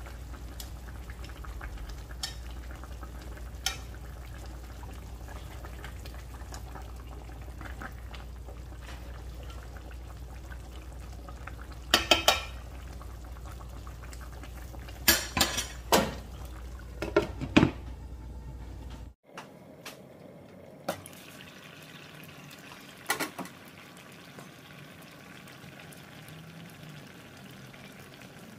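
Chicken pieces simmering in paksiw sauce in a pan, bubbling steadily, while metal tongs clink against the pan and meat a few times, with a quick cluster of clinks around the middle. A low hum underneath cuts off about two-thirds of the way through.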